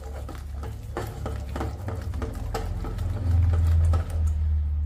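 Hand mixing thick gram-flour batter in a steel bowl: fingers working through the wet batter in quick rhythmic strokes, about three a second. A steady low hum runs underneath and grows louder about three seconds in.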